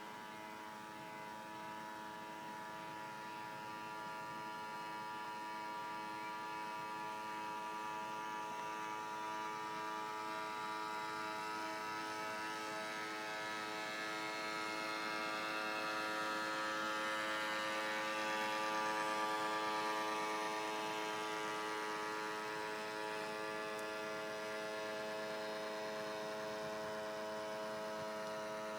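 Drive motor of a radio-controlled model fishing cutter running at a steady speed with an even, humming whine. It grows slowly louder, peaks about two-thirds of the way through, then eases off slightly.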